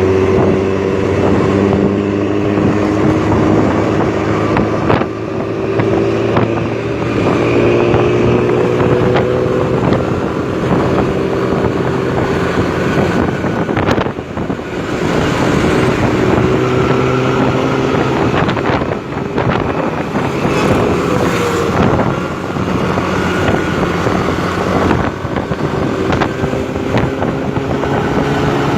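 Intercity bus diesel engine running under load through a loud, rumbling "snoring" (ngorok) exhaust. Its pitch climbs slowly, drops back and climbs again several times.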